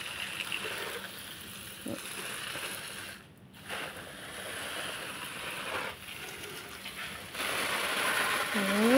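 Water spraying from a pistol-grip hose nozzle onto potted plants, a steady hiss and spatter. It stops for a moment about three seconds in, then resumes. Near the end it grows louder as the spray drums on a plastic bag.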